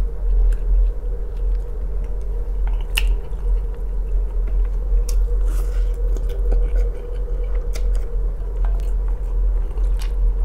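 Close-up chewing and slurping of noodles in broth eaten with chopsticks, with a longer slurp about halfway through and a few short light clicks, over a steady low hum.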